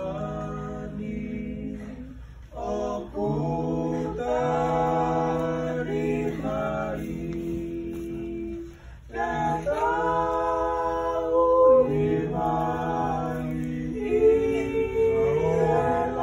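A group of voices singing a hymn unaccompanied in several-part harmony, holding long steady notes and breaking off briefly between phrases twice.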